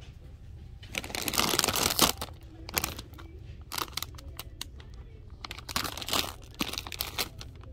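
Plastic chip bag crinkling as it is handled and pulled from a wire rack. It comes in several irregular bursts, loudest about a second in.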